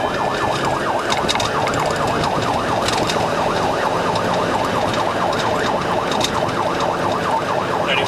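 Police car siren in a fast warble, many quick up-and-down sweeps each second, with a slower rising and falling wail over it in the first couple of seconds and road noise beneath.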